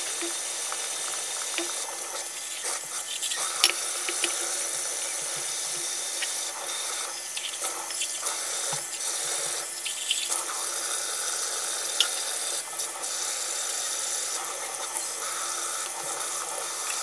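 Steady running water, with a few light clicks; it cuts off suddenly at the end.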